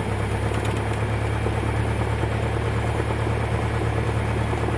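Cessna 172's piston engine running steadily at low power, a constant low drone.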